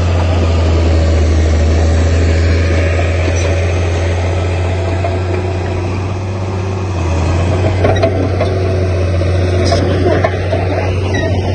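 Heavy-equipment diesel engine running steadily with a deep, even drone, and a single knock about eight seconds in.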